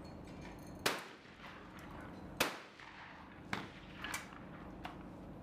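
Shotgun shots at a clay shooting layout: two sharp reports about a second and a half apart, then a few fainter cracks.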